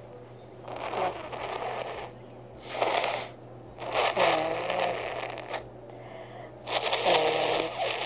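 A person with a cold blowing a congested nose four times, the second blow short, each a rush of air with a wavering, honking pitch as it forces through the blocked nose.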